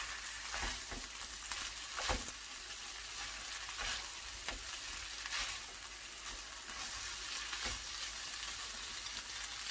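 Bracken fern stir-frying in a pan: a steady sizzle with a few sharp clicks of the utensil against the pan, one louder about two seconds in.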